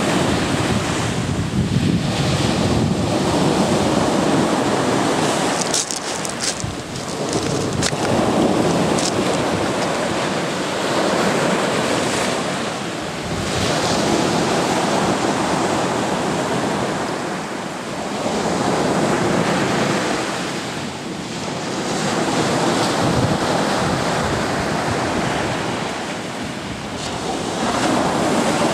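Sea surf breaking close by on a beach: waves crash and wash up the shore, swelling and easing every few seconds, with wind rumbling on the microphone.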